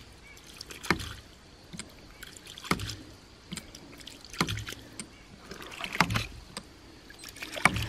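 Half-inch hydraulic ram pump cycling: its waste valve slaps shut with a sharp knock about every 1.7 seconds, five times, with a short rush of water spurting from the valve around each knock. The slow beat, about 37 cycles a minute, is typical of a long drive pipe with no standpipe.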